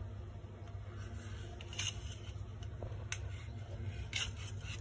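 Kitchen knife slicing through steamed dal pitha on a stainless steel plate, the blade scraping and clicking against the steel three times, over a low steady hum.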